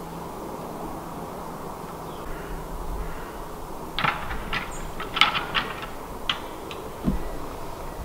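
Red deer stags' antlers clacking together: a run of sharp, hard knocks starting about halfway through, with a dull low thud near the end.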